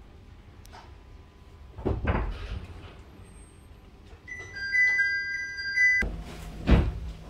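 Passenger-train door chime of two alternating high tones, repeated about four times, then the sliding doors closing with a heavy thump near the end. Another thump comes about two seconds in, over the low hum of the standing train.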